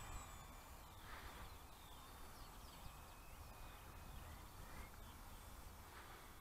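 Near silence outdoors, with a few faint bird chirps around the middle.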